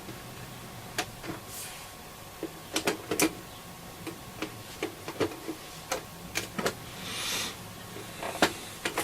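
Scattered small clicks and knocks of a screwdriver and plastic parts as the battery compartment of a Selena B210 transistor radio is opened, with a brief scraping sound about seven seconds in.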